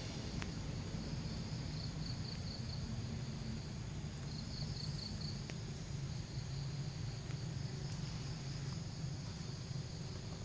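Forest ambience: insects chirping high and faint in two short pulsed trains, about two and a half and five seconds in, over a steady low rumble, with a few faint ticks.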